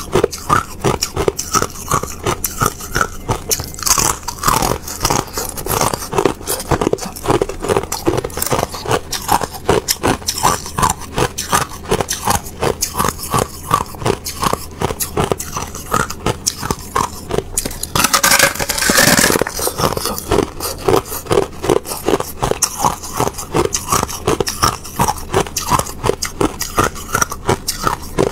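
A thin sheet of clear ice being bitten and chewed: a rapid, continuous run of crisp crunches and crackles. There is a louder burst of crunching about eighteen seconds in.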